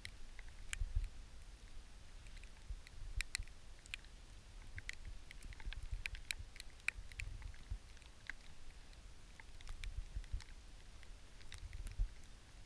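Slow footsteps crunching through thin snow and dry grass: irregular soft crackles and clicks, with low thumps of the footfalls and gear carried close to the body.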